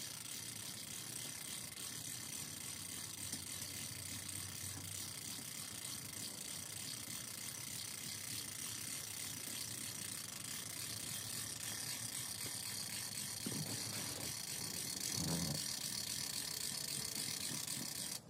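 Winch being cranked to hoist a camper roof panel by a line over a tree limb, its ratchet pawl clicking in a fast, steady run. A couple of low knocks come near the end.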